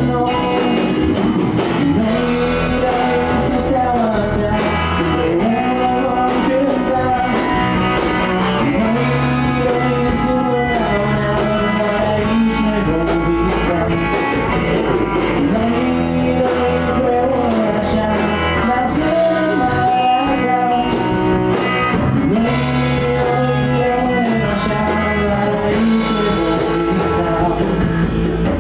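A rock band playing a song with male lead vocals over electric guitar, electric bass and a drum kit.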